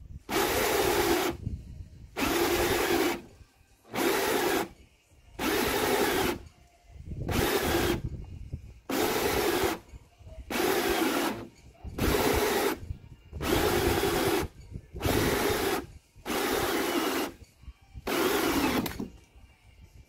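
Makita 18 V cordless drill driving a hole saw into the top of a plastic waste water tank. It runs in about a dozen short bursts of roughly a second each, with brief pauses between them, as the saw cuts through the tank wall.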